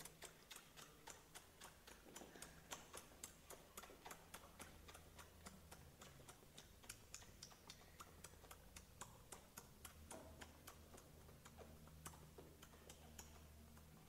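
Faint, quick clicking, about three to four clicks a second at first and then more uneven, over a steady low hum.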